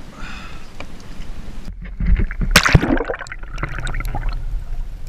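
Water sloshing and gurgling around a kayak; a little past a third of the way in the sound abruptly turns muffled, a loud splash follows, then low underwater gurgling as heard from a submerged camera.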